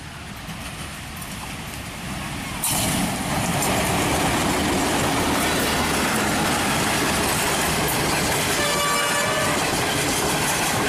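A diesel-hauled passenger express passing at speed on the main line. The noise grows as the locomotive approaches and jumps sharply as it draws level about three seconds in. Then the steady noise of coaches rolling past on the rails follows, with a brief high tone near the end.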